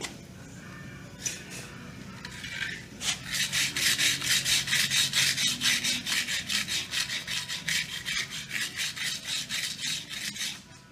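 A wooden stick scraping back and forth along a board's charred Lichtenberg burn, scrubbing loose the burnt wood. A few light strokes come first, then from about three seconds in a quick, even rhythm of roughly three to four strokes a second, which stops shortly before the end.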